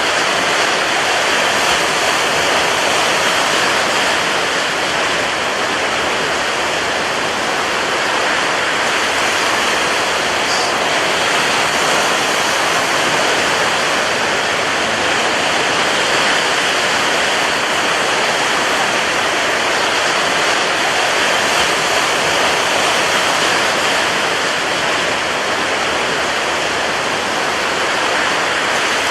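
Rough sea: a loud, steady rush of surf with no separate wave breaks standing out.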